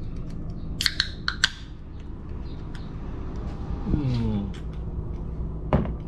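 A few sharp clicks about a second in, a short falling vocal sound around four seconds, and a single knock near the end, over a steady low hum.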